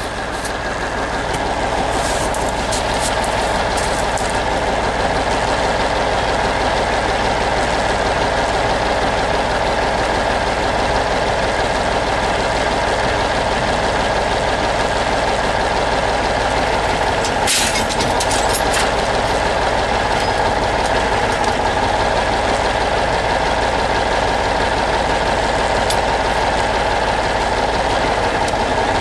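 The T-150K tractor's YaMZ-236 V6 diesel running steadily. A few short clicks come about two to four seconds in, and a single sharp knock about seventeen seconds in.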